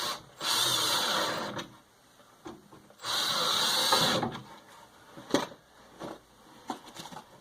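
Two screws driven into the wooden door edge one after the other with a power driver, each run in for about a second, followed by a few light clicks as the hardware is handled.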